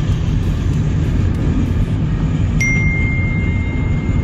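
Steady low rumble of highway driving at speed, road and wind noise, with a thin, high steady tone joining about two and a half seconds in and lasting a second and a half.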